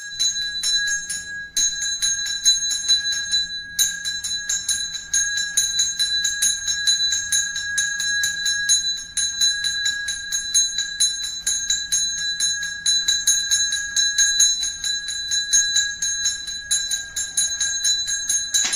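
Ritual hand bell rung rapidly and continuously, a steady ringing with quick repeated strokes; it breaks off briefly twice near the start.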